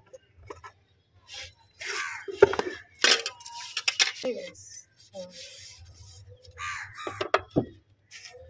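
Household items being scrubbed and rinsed by hand in a plastic basin of water: scattered short knocks, scrapes and splashes.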